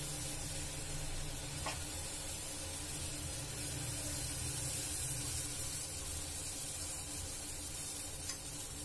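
Pot of spice decoction (kashayam) boiling on the stove: a steady bubbling hiss, with two faint ticks about two seconds in and near the end.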